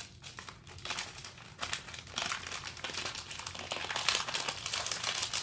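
Foil Lego minifigure blind bag crinkling as it is handled and opened by hand, with scattered crackles that grow busier about two seconds in.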